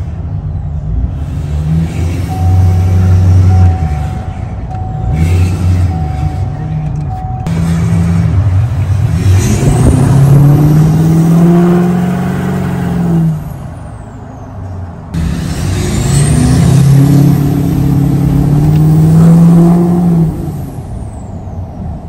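L5P Duramax diesel with a 64 mm aftermarket turbo accelerating twice, heard from the cab with the window down. On each pull the engine note climbs and the turbo whistle spools up to a high rising whine, then drops away as the throttle is lifted.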